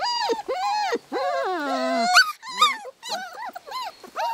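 Young puppies whining: a run of short, high, arching cries a few times a second, with one longer cry about a second in that slides down in pitch.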